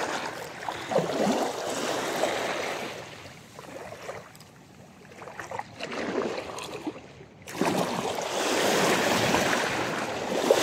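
Water washing and lapping at the shore, rising and falling in surges, with a loud rush starting about seven and a half seconds in.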